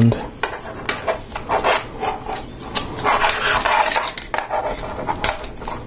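Plastic Lego Technic parts clicking and rubbing together in the hands as an axle is slid through a beam assembly and another piece is fitted on its end. Irregular sharp clicks, with a longer scraping rub about three seconds in.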